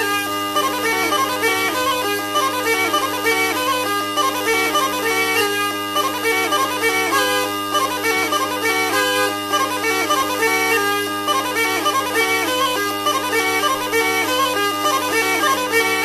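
Traditional Sardinian reed-pipe music in the style of launeddas: a steady drone held under a fast, running, ornamented melody that plays without a break.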